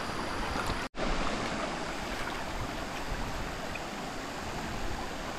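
Steady rush of flowing stream water, cut off for an instant about a second in.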